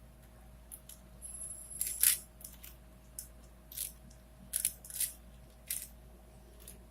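Plastic clicks and clacks of a 4x4x4 Rubik's cube (Rubik's Revenge) as its layers are turned by hand: half a dozen or so separate snaps, the loudest about two seconds in.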